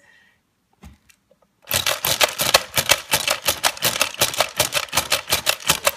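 Hungry Hungry Hippos game being played: the plastic hippos clack as their levers are pressed over and over, several sharp clacks a second, starting about two seconds in.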